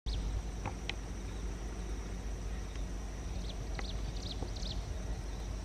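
Early-morning outdoor ambience: birds giving a handful of short falling chirps, most of them in the second half, over a steady high insect drone and a steady low rumble.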